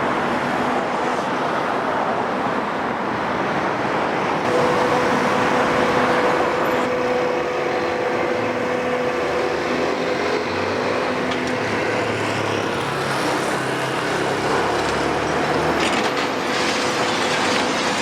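Caterpillar M322C MH wheeled excavator's Cat 3056E turbo diesel running under load, a steady machine noise with a steady high tone that sets in about four seconds in.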